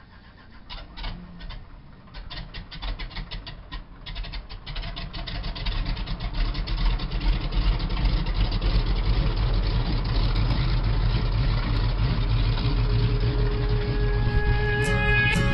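Pratt & Whitney R-985 nine-cylinder radial engine of a de Havilland Beaver floatplane starting: a few scattered firing strokes, then it catches about four seconds in and builds over the next few seconds to a steady run. Guitar music comes in near the end.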